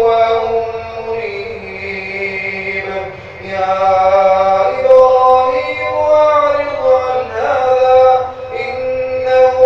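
A man reciting the Quran in a slow, melodic chant, drawing out long held notes that glide up and down, with a short breath pause about three seconds in.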